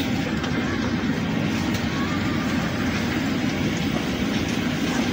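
Steady low rumble and hiss of a Boeing 767-300 airliner cabin at the gate during boarding, the noise of the aircraft's air-conditioning and running systems.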